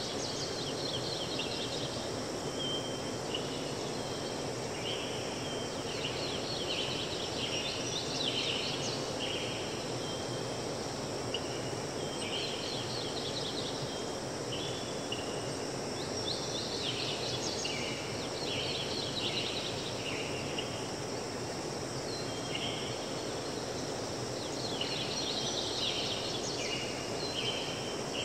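Steady rush of running water with a small bird singing over it in bouts of quick, high chirping phrases, each bout a few seconds long with short pauses between.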